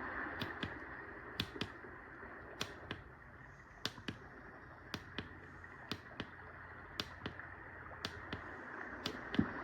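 White noise sound machine playing one of its soothing sounds: a soft hiss with sharp paired ticks about once a second, the hiss dipping in the middle and swelling back near the end.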